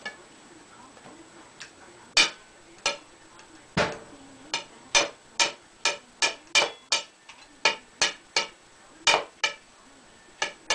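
A knife tapping and scraping on a ceramic plate as a baked potato is cut up on it: sharp clicks, one or two a second and unevenly spaced, starting about two seconds in.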